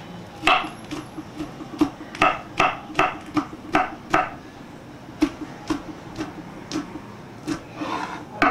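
Chef's knife chopping green chillies on a wooden cutting board: sharp knocks of the blade on the wood at an uneven pace, about two or three a second, with a short pause around the middle.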